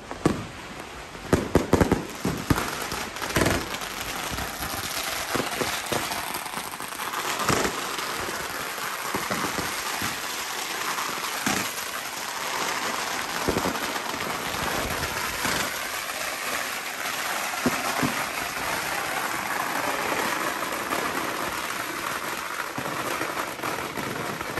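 Consumer fireworks going off: several sharp bangs in the first few seconds, then a dense, continuous crackle with scattered pops.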